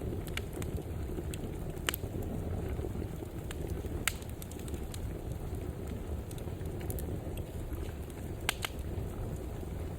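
Wood fire burning in a fireplace: a steady low rumble of flames with scattered sharp crackles and pops, the loudest about 2, 4 and 8.5 seconds in.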